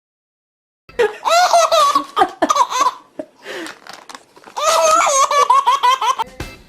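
A baby laughing hard in two bouts of high, rapid giggles, starting about a second in. Music comes in just before the end.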